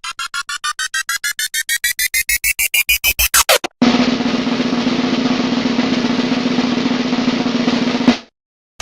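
Two sound effects in a row. First, a series of pulses like a drum roll, speeding up and rising in pitch, ending in a quick downward sweep. Then a steady noisy buzz with a low hum for about four seconds, which cuts off abruptly.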